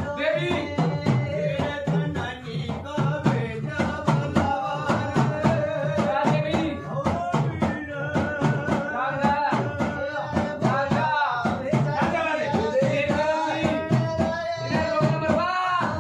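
Live group folk music: men's voices singing over a hand drum keeping a steady beat, with sharp jingling or clicking percussion on top.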